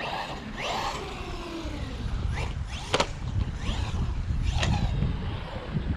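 Bezgar HM124 1/12-scale brushless RC car running on skate-park concrete: a motor whine that falls in pitch about a second in, over a low tire rumble, with a few sharp clicks or knocks.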